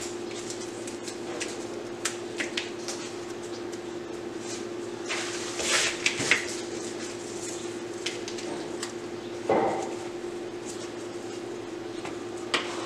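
Cut rose stems being handled and pushed into a block of floral foam: leaves rustle, and light clicks and taps are scattered through, with a louder rustle about six seconds in and a short one near ten seconds. A steady low hum sits underneath.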